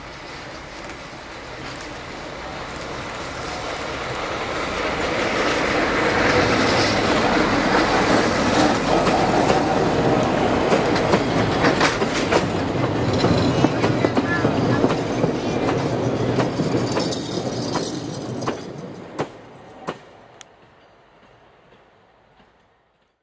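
Heritage narrow-gauge train, a red diesel locomotive hauling old wooden coaches, approaching and passing close by: the rumble of the engine and wheels builds up to loud, with clickety-clack of wheels over the rail joints, then dies away as the train leaves. A few separate sharp clacks sound from the last wheels as it fades.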